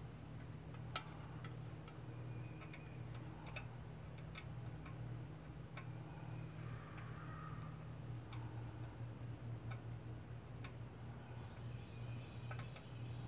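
Scattered faint clicks and light taps of a small wire connector and fittings being handled on a small engine, a dozen or so irregular ticks, over a steady low hum.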